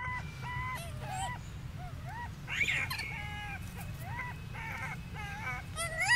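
Young macaques calling: a string of short, high calls, each rising and falling, about two a second, with a louder, harsher call about two and a half seconds in and another near the end.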